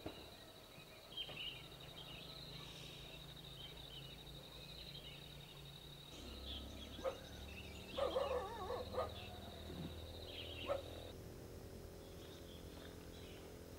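Outdoor rural ambience: a steady high-pitched insect-like drone with a few short animal calls, the loudest cluster about eight seconds in. The drone stops about eleven seconds in.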